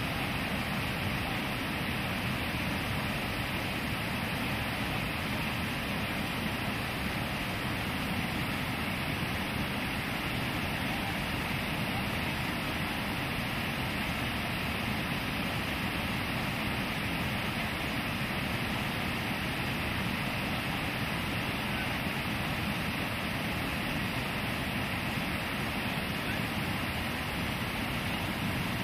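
Whitewater river rapids rushing steadily, the water pouring through a foaming standing wave.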